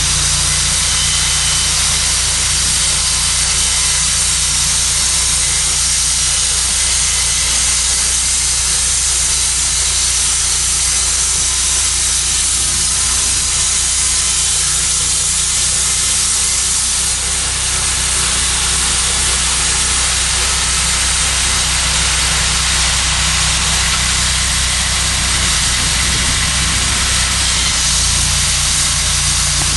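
Cook's HD3238 portable band sawmill running: a steady engine drone under a loud, even high hiss, with a brief dip about seventeen seconds in.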